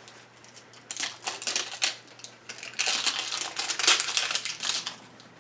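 Plastic toy packaging crinkling and rustling as it is torn open, a quick irregular run of crackles that grows busier in the second half.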